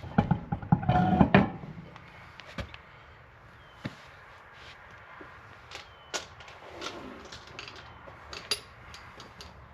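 Knocks and metal clanks of a truck wheel and lug nuts being handled and fitted back onto the hub, a dense burst of them in the first second and a half, then scattered light clicks and clinks.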